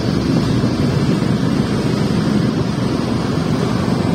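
Wind rushing over the microphone together with a Yamaha Fino scooter's engine and tyre noise while riding: a steady low rush with no breaks.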